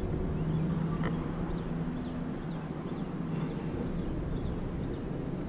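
Steady low background hum, with a few faint short bird chirps and a light click about a second in.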